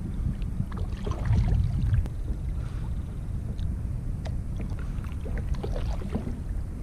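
Kayak paddling: the paddle dipping, with water splashing and dripping in scattered short sounds over a steady low rumble.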